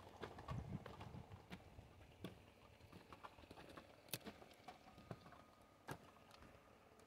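Faint footsteps crunching over dry bark and branch debris, with scattered twig snaps and light knocks.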